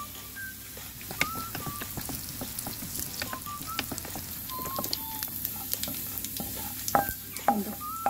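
Chopped garlic, a dried red chilli and cumin seeds sizzling and crackling in hot oil in a frying pan for a garlic tempering. A wooden spatula stirs and scrapes through them, with a couple of louder knocks near the end.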